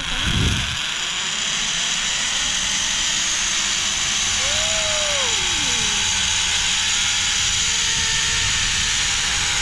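Zipline trolley's pulley wheels running along the steel cable: a steady whirring hiss throughout, with a low thump just at the start and a brief rising-then-falling tone about halfway through.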